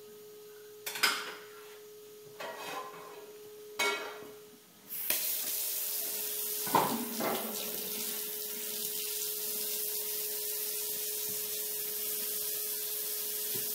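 Kitchen tap turned on about five seconds in, water then running steadily into a stainless steel sink.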